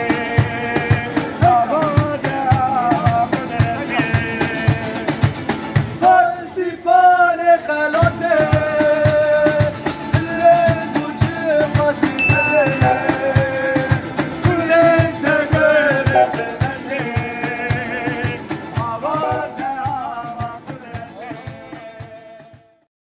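A street trio playing live: two acoustic guitars strummed over a steady cajón beat, with a man singing the melody. The drum drops out for a moment about six seconds in, and the music fades out near the end.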